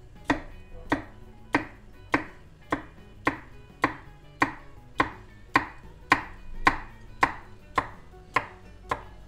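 Chef's knife chopping zucchini into cubes on a wooden cutting board: an even run of short knocks on the board, a little under two a second.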